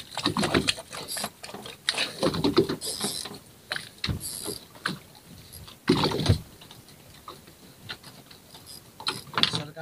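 Irregular knocks, rustles and water sounds on a small fishing boat at sea while a spinning reel and rod are worked to jig a metal jig, in uneven short bursts with quieter gaps between.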